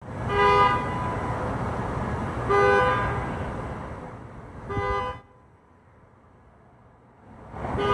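Car horns honking four times, short blasts about two seconds apart, over a steady rumble of vehicle noise that drops away after the third. These are driverless Waymo robotaxis honking at one another with nobody inside.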